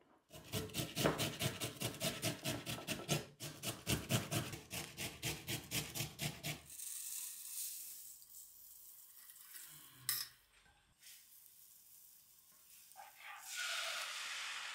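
A metal spoon scraping and tossing chopped vegetables in a metal baking tray in rapid, regular strokes. Then dry rice hisses softly as it pours into a steel mesh sieve, with one sharp click. Near the end, grated tomato starts sizzling in hot butter in a frying pan.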